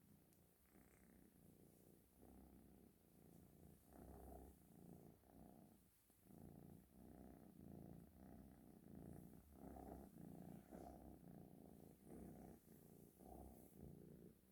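Cat purring softly, the purr swelling and fading with each breath about twice a second.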